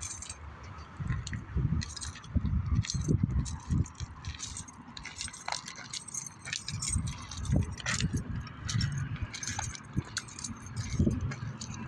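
Irregular light metallic clinking and jingling over uneven low rumbles, with no speech.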